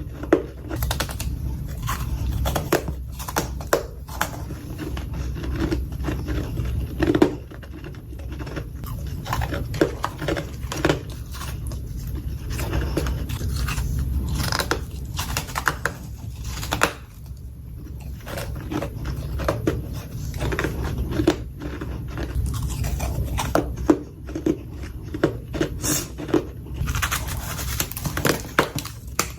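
Close-up crunching and chewing of soft freezer frost, in irregular bites and crunches throughout, over a steady low hum.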